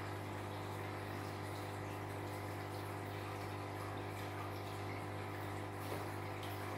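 A steady low electrical hum with faint even overtones and a light hiss, unchanging throughout.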